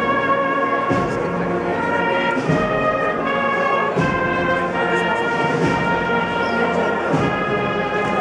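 Spanish processional band (agrupación musical) playing a slow march: brass and cornets hold long chords that change every second or two over steady drum strikes.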